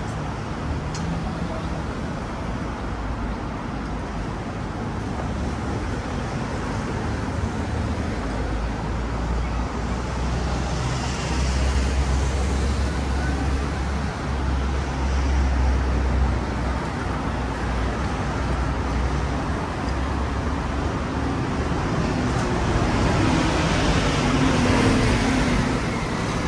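Busy city street traffic: a steady wash of vehicles running past, with a deep engine rumble from a heavy vehicle through the middle.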